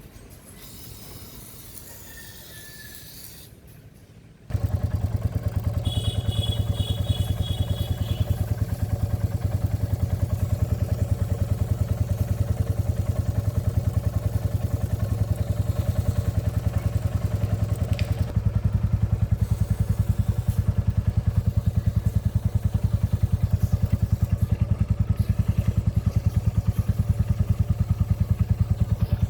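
Royal Enfield Classic 350's single-cylinder engine idling steadily with a rapid, even beat. It starts up suddenly about four seconds in.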